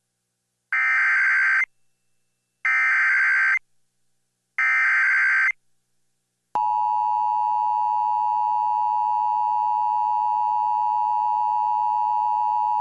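Emergency Alert System tones for a severe thunderstorm warning. Three one-second bursts of SAME header data warble about two seconds apart, then the steady two-tone EAS attention signal begins a little over halfway through and holds without a break.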